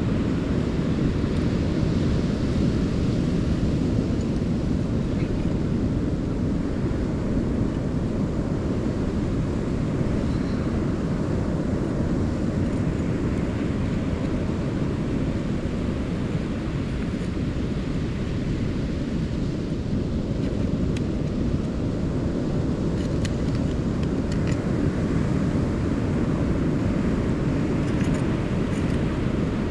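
Steady low rumble of wind and surf on the shore, with a few faint clicks near the end.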